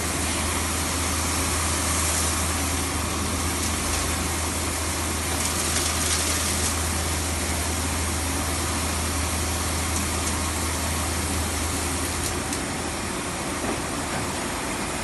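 Victor Vturn36 CNC lathe running: a steady low hum with a broad hiss over it. The hum shifts near the end.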